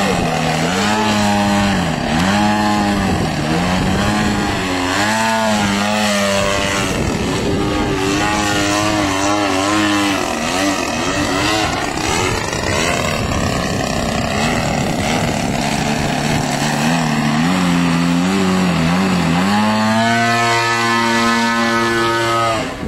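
DLE 55 single-cylinder two-stroke gas engine and propeller of a giant-scale RC aerobatic biplane in flight. The throttle rises and falls about once a second during the first half, and the pitch sweeps down and back up about halfway through. For the last few seconds it runs at a steadier, stronger note.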